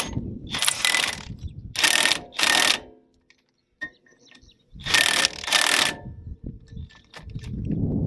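Cordless power driver with a socket running bolts into the pusher holes of a QD tapered hub in short spurts, five runs in two groups, jacking the belt sheave off its taper.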